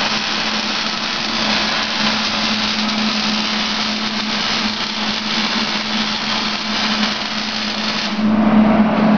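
Welding arc crackling and hissing steadily while boxing in a steel car frame rail, cutting off about eight seconds in and leaving a low steady hum.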